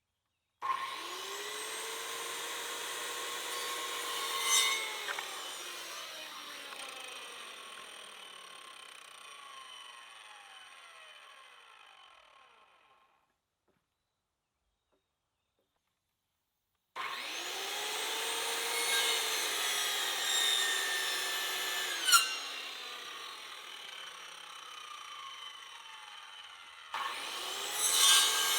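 Electric power saw cutting wood three times. Each time the motor spins up, cuts through the board and winds down with a slowly falling pitch, with a sharp tick near the end of the first two cuts and a silent gap between the first two.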